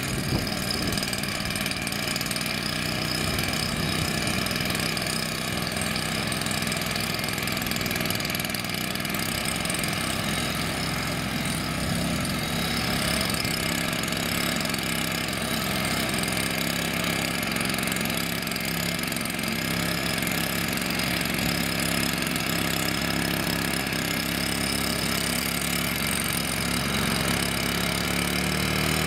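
Small petrol engine running steadily at one constant speed.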